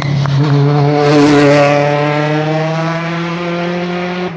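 Rally car passing at speed on a tarmac stage, engine at high revs, loudest with a rush of noise as it goes by about a second in, then pulling away with its pitch climbing as it accelerates.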